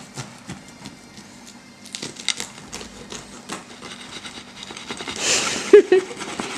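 Knife cutting through the crisp, caramelised, buttery crust of a kouign-amann, a run of small crackles and crunches with a longer, louder crunch about five seconds in.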